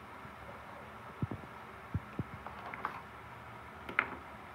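Quiet kitchen hum with a few soft, low thumps in the middle and a single sharp click about four seconds in.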